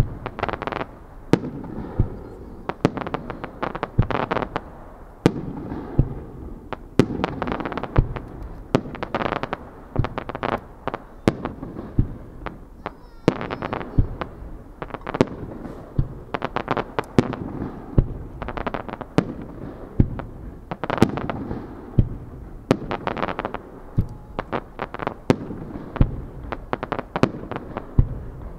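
Aerial fireworks shells launched and bursting in quick succession, a sharp bang about once a second, with stretches of crackling between the bangs.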